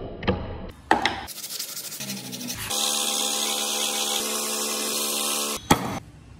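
Wood being worked with an abrasive: short rubbing and scraping strokes with a few sharp knocks, then about three seconds of steady, even abrasion.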